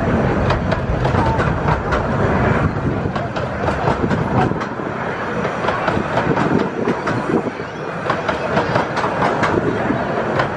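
15-inch-gauge miniature railway carriages rolling slowly along the track, a steady rumble of wheels on rail with many sharp clicks as the wheels pass over the rail joints.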